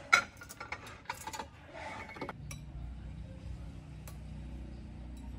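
A few sharp clinks of spoons and china plates being handled on a wooden table, the loudest just after the start. About halfway through, a steady low hum takes over.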